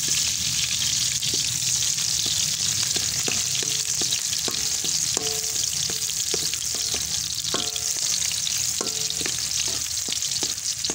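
Garlic sizzling in hot cooking oil in a metal wok, stirred with a coconut-shell ladle. The ladle clinks and scrapes against the pan every so often through the middle and later part.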